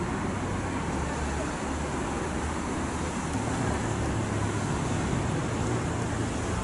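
Steady low engine rumble with a faint drone in it, growing a little stronger about three seconds in.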